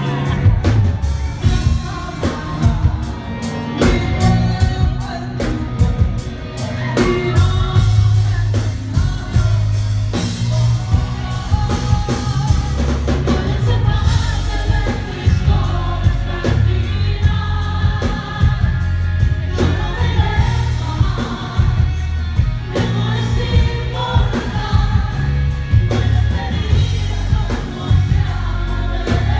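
Live pop band playing with a woman singing lead and backing singers joining in, over a heavy bass line and a steady beat, heard from the audience.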